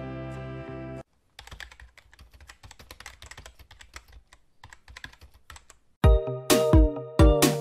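A held background-music chord ends about a second in. Then come a few seconds of faint, quick, irregular clicks of typing on a computer keyboard. About six seconds in, loud electronic outro music with a strong beat starts.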